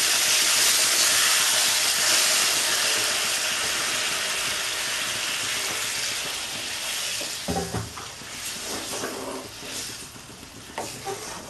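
Hot water poured into a wok of fried spiced potatoes sets the hot oil and masala sizzling, loudest at first and slowly dying down. From a little past halfway, a wooden spatula scrapes and knocks in the pan as the curry is stirred.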